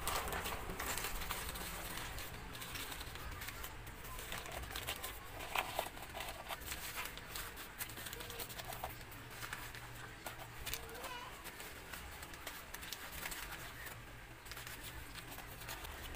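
Newspaper rustling and crinkling in short scattered bursts as it is folded and pressed around a mug by hand, with a few bird calls faint in the background.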